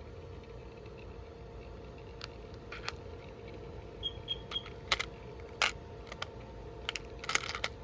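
Scattered light clicks and taps of small plastic and wooden craft embellishments being handled, a few at a time, more of them in the second half, over a faint steady hum.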